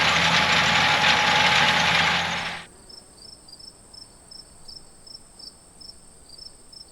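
Large farm machine engine running loud and steady, cutting off suddenly about two and a half seconds in. After it, insects chirp in an even rhythm of about two or three chirps a second over a steady high buzz.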